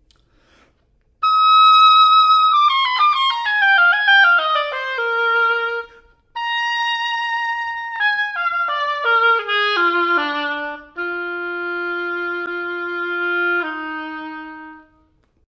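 Solo oboe playing a slow etude passage: it enters about a second in on a full, loud held high E-flat, then descends in runs. After a short breath near the middle, a held note leads into a slurred run of sixteenth notes given breath accents rather than re-tonguing, ending on a long low note.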